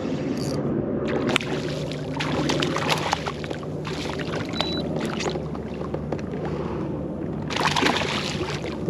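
Water sloshing and splashing around a kayak, with a steady low hum throughout. There are many sharp clicks and knocks over the first few seconds, and a louder burst of splashing near the end.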